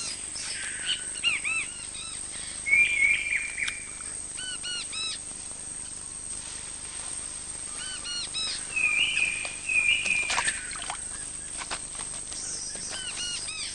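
Forest ambience of bird calls: short high chirps that come in quick groups of three, several times, and two longer flat trilling calls, one a few seconds in and one about two-thirds of the way through.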